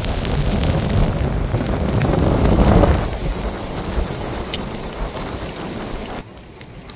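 Heavy rain falling steadily on pavement and grass, under a low rumble of thunder that swells to its loudest about three seconds in and slowly dies away. The sound drops suddenly to a quieter rain near the end.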